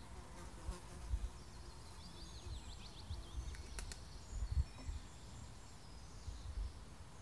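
Garden ambience with a flying insect buzzing close to the microphone, making dull low bumps, the loudest about a second in and again past the middle. A small bird sings a quick warbling phrase about two to three seconds in.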